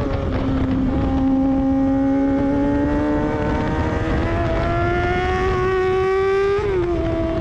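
Sport motorcycle engine at full throttle on track, its revs climbing steadily, then dropping sharply and levelling off near the end. Heavy wind noise on the microphone runs underneath.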